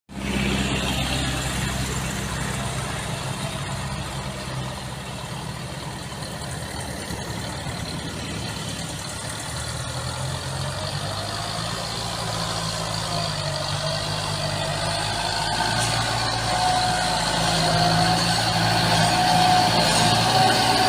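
Heavy vehicle engine running steadily, likely the tractor or the dump truck at work, growing gradually louder. A higher whine comes in about three quarters of the way through.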